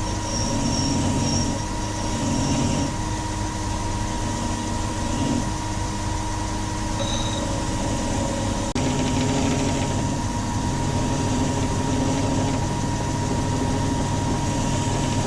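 Electric grinding tool running steadily as burrs and lumps are ground off an old steel wrench. It breaks off for a moment just past halfway.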